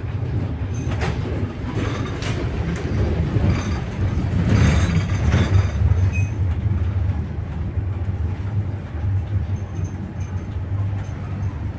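Wheels of a double-decker passenger train knocking over the rail joints, heard from inside a compartment car, over a steady low rumble. A quick run of knocks comes about halfway through.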